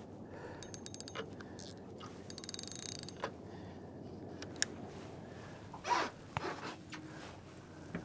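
Fishing reel clicking and ratcheting as the baited line is sent back out: a few scattered clicks, then a quick run of fine ticks about two and a half seconds in, and a louder knock near six seconds.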